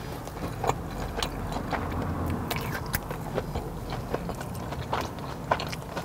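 Close-miked chewing of a mouthful of Korean corn dog, with irregular small clicks and crunches from the mouth.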